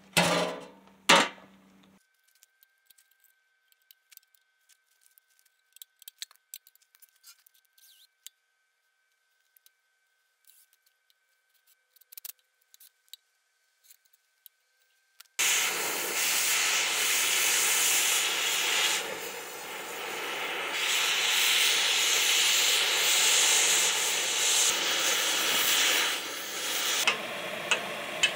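A couple of sharp knocks, then near silence. About halfway through, a grinder starts suddenly, giving a loud, steady, hissing scrub of abrasive on metal as it cleans up the Ford 8.8 rear axle housing.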